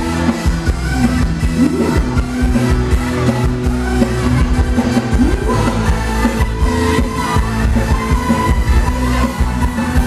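Live band playing Thai ramwong dance music at a steady beat.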